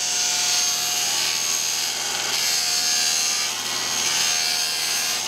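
Table saw ripping a long wooden board lengthwise into a thin strip, the blade cutting at a steady, even pitch throughout.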